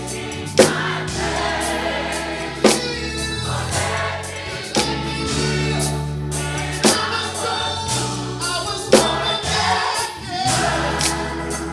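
Gospel mass choir singing with band accompaniment: held bass notes under the voices and a drum hit about every two seconds.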